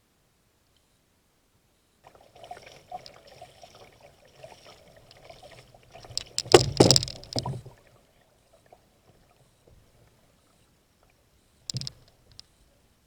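Water splashing and knocking against a kayak, loudest in a cluster of knocks around the middle, with one short knock near the end.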